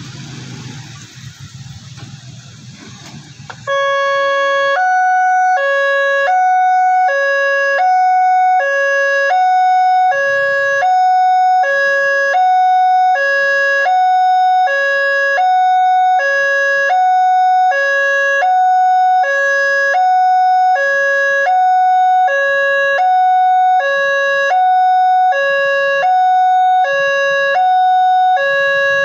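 Motorcycle and car traffic on the road, then about four seconds in the railway level crossing's electronic warning alarm starts: a loud two-tone signal alternating between a lower and a higher tone, each just under a second long, repeating steadily. It signals that a train is approaching and the crossing is closing.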